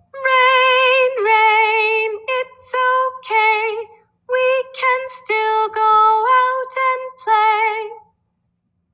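A high voice singing a short children's song with no accompaniment, a string of short held notes with vibrato stepping up and down in pitch, ending about eight seconds in.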